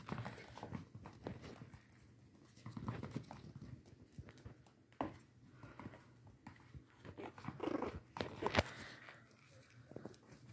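Two small puppies playing on a laminate floor: scattered clicks and taps of their claws and paws on the floor, with soft scuffling and a brief puppy vocalisation about eight seconds in.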